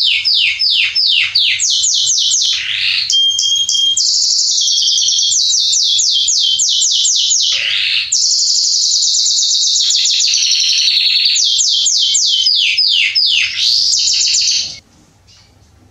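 Male Belgian canary singing a long, fast song of rapid downward-sweeping notes run together with high buzzy trills. The song stops abruptly about a second before the end.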